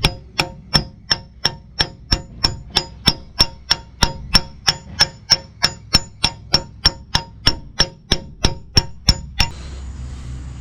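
Hammer blows on metal, steady at about three a second, each with a short metallic ring, driving a new rear axle bearing into the axle housing of a 2003 Dodge Ram 1500. The blows stop about nine and a half seconds in, with the bearing seated.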